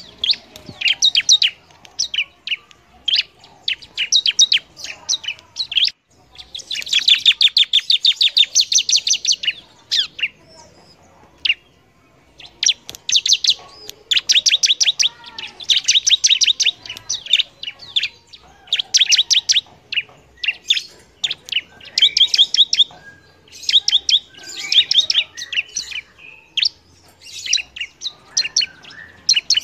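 Bar-winged prinia (ciblek) singing vigorously: runs of fast, sharp, high-pitched chirping notes in short bursts with brief pauses between them. There is a longer unbroken run about seven seconds in and a short pause around eleven seconds.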